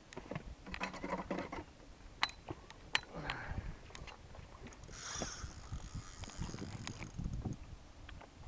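Spinning reel being cranked against a hooked fish, its gears whirring and ratcheting, with two sharp clicks about two and three seconds in and a hissy stretch in the middle.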